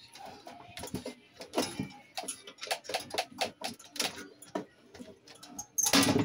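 Irregular light clicks and taps from a small tool and fingers working the wires and fuse terminals inside an opened rice cooker base, with one louder knock near the end.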